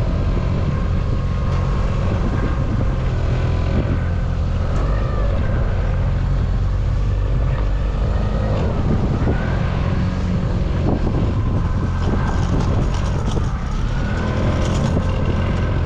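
A fishing boat's engine running steadily under way, a continuous low drone, with rushing wind and water noise over it.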